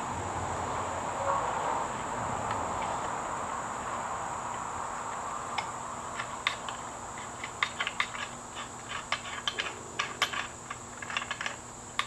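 Hand ratchet with a T27 Torx bit backing out the air filter screws: irregular ratchet clicks that start about halfway through and come thicker and faster towards the end, after a faint steady hiss.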